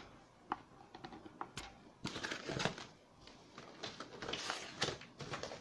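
Irregular taps, clicks and scraping as a cardboard retail box is handled and opened on a desk, busier from about two seconds in.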